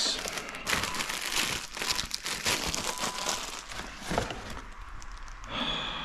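Crinkling and rustling of something being handled, thickest over the first four seconds and thinning toward the end.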